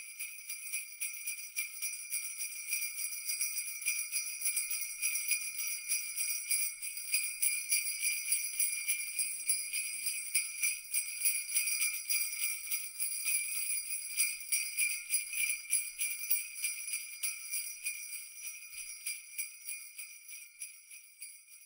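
Jingle bells shaken continuously in a rapid, uneven rhythm of jingles, fading over the last few seconds and stopping.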